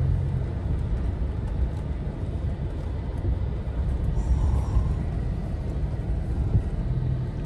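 Steady low rumble of a pickup truck driving over gravel, heard from inside the cab.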